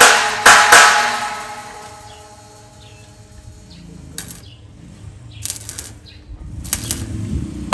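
Hammer striking metal twice, the metal ringing and dying away, then a few quieter clusters of taps; a run of hard ringing blows starts again at the very end.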